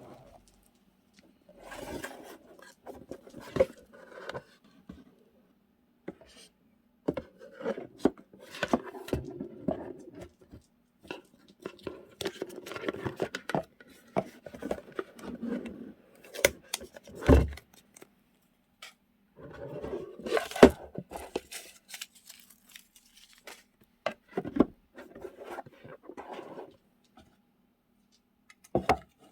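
Journaling supplies such as paper stickers and their plastic packaging being handled and sorted: rustling and scraping in bursts, with scattered sharp taps and clicks and short pauses between. A faint steady hum runs underneath.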